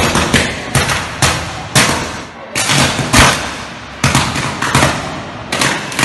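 Overhead power cables on a utility pole short-circuiting and burning: a string of sharp cracking pops and fizzing bursts from the electrical arcing, coming irregularly about two or three a second.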